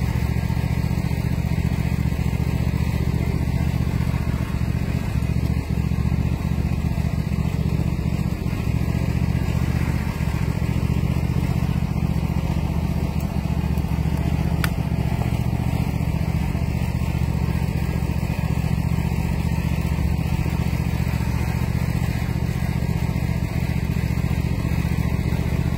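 Small engine running steadily at an even speed, with no change in pitch, while a sugar cane mill turns.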